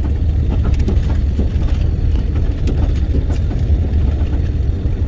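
Steady low rumble of a semi truck's engine and tyres, heard from inside the cab while driving.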